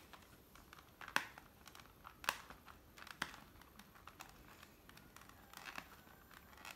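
Faint crinkling and rustling of packaging and bubble wrap being handled while a sealed product box is opened, with three sharp clicks about a second apart.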